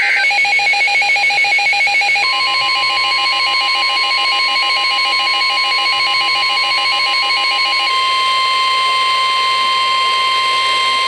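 Weather radio emergency alert tones: a rapid pulsing electronic beep, joined about two seconds in by the steady 1050 Hz warning alarm tone that precedes a weather warning. The pulsing stops about eight seconds in, and the steady tone holds alone.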